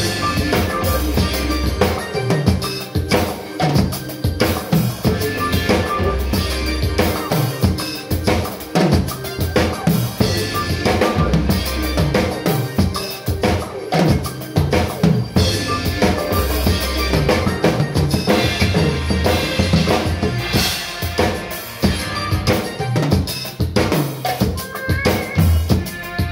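Acoustic drum kit played live in a steady groove of kick drum, snare and cymbals, with fills. A recorded song plays underneath as the backing track.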